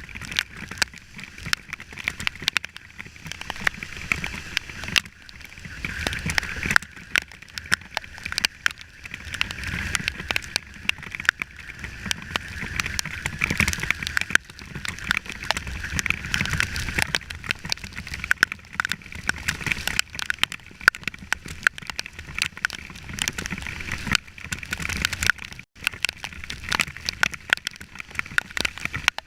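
Rain striking close to the microphone in many sharp, irregular taps, over a steady rushing noise from riding a motorcycle.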